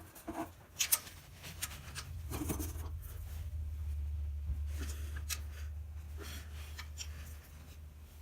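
A wrench turning a reused torque-to-yield LQ4 head bolt a further 90 degrees: a few sharp clicks and light scraping of the tool. A low hum builds in the middle and fades near the end.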